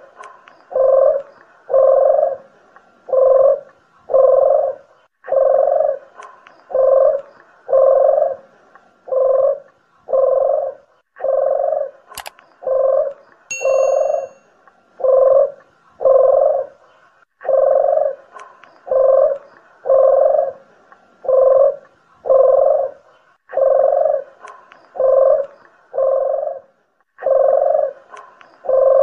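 Streptopelia doves (puter geni and deruk jawa) cooing in a bird-lure recording. It is a short low coo about once a second, in runs of five or six with brief pauses between runs. A sharp click comes about twelve seconds in, followed by a brief high note.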